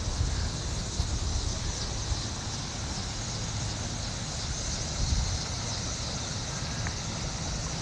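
Steady outdoor background noise: a low rumble with a constant high hiss over it, and no distinct events.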